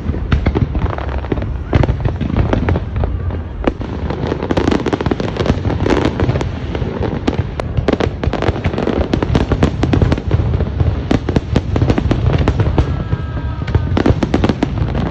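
Fireworks display in full barrage: rapid, overlapping bangs and crackling over a continuous low booming, with no let-up.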